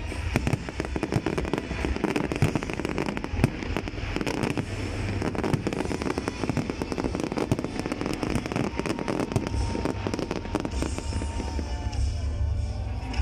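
Aerial fireworks bursting overhead: a dense run of pops and crackles over low rumbling, thinning out in the last couple of seconds as the display fades.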